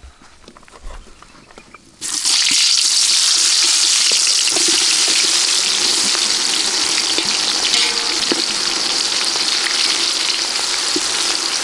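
Sliced red onions tipped into hot oil in an aluminium pot, sizzling loudly from about two seconds in and going on steadily as they are stirred with a spoon.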